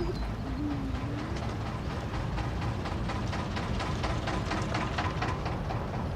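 Narrowboat diesel engine running with a steady low chug and a regular knock of about five beats a second.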